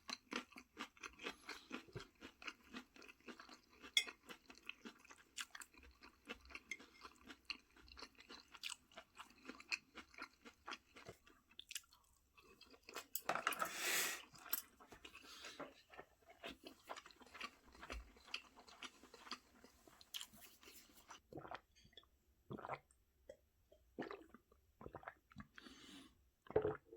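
A person chewing food close to the microphone, with many small irregular mouth clicks. There is a louder noisy burst lasting about a second and a half near the middle, and the sounds become sparser after it.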